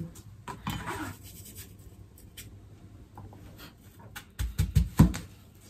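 Kitchen knife slicing an apple on a cutting board: light scraping cuts, then a quick run of knocks of the blade on the board near the end, the last the loudest.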